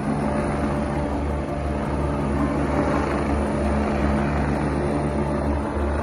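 Helicopter rotor and turbine engine running steadily and loudly close by as the helicopter comes down to land.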